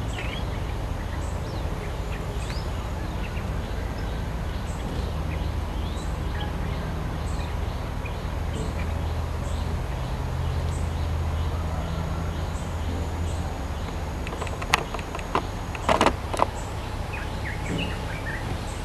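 Olive-winged bulbuls giving faint short chirps over a steady low rumble. A faint high tick repeats about every second. About three-quarters of the way through comes a quick cluster of sharp knocks, the loudest sound.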